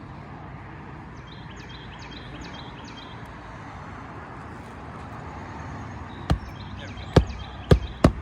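Hammer blows driving roofing nails into asphalt shingles: four sharp strikes in the last two seconds, the first about six seconds in, over a steady background hum.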